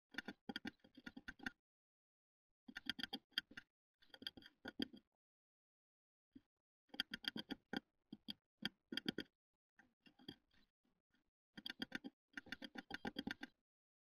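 Great tit pecking at the wood inside a wooden nest box: bursts of rapid, sharp taps about a second long, repeated several times with short pauses between.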